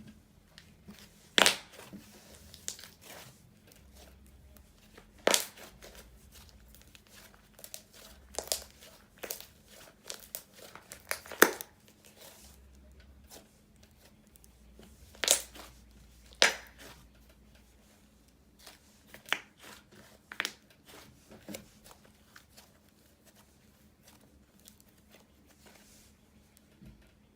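Slime being played with by hand, giving irregular sharp pops, clicks and crinkling sounds as it is pressed and stretched.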